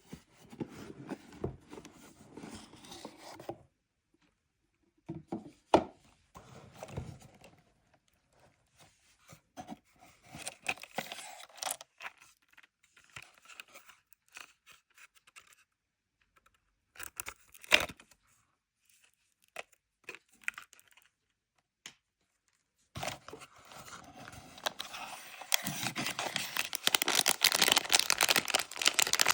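Packaging being unwrapped by hand: on-and-off tearing and crinkling with a few sharp clicks, turning into loud, continuous crinkling over the last six seconds or so.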